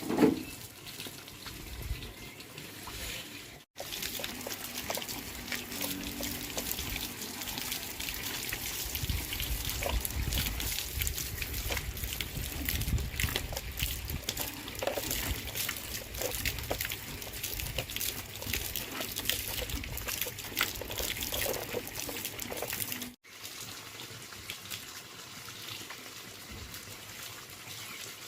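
Water running and splashing, a steady crackling hiss that is loudest in the middle section. It is broken by two abrupt cuts and starts with a short sharp knock.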